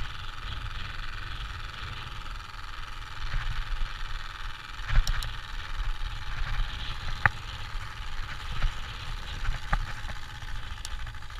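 A card flapping against the spokes of a moving bicycle wheel, sounded through an exhaust-pipe-shaped attachment, making a steady rattling buzz like a small motorbike engine, with a few sharp clicks and low rumble.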